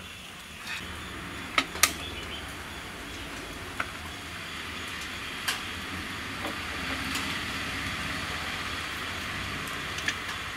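A few sharp metal clicks and clunks as an aluminium pressure cooker is handled and set down on a gas stove, over a steady hiss.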